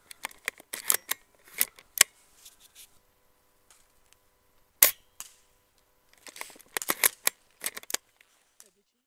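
Sharp cracks and clicks of airsoft gunfire and gun handling: several in the first two seconds, one loud crack about five seconds in, and a quick run of them near the end.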